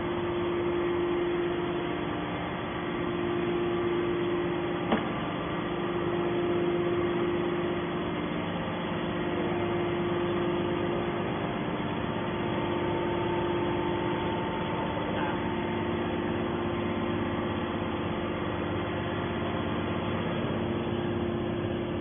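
Hydraulic metal baler's power unit, electric motor and pump, running at idle with a steady hum, with a single sharp click about five seconds in.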